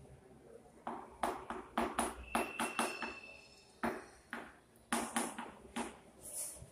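Chalk writing on a blackboard: a run of short, uneven taps and scratches as letters are stroked on, with a brief thin high squeak of the chalk about two and a half seconds in.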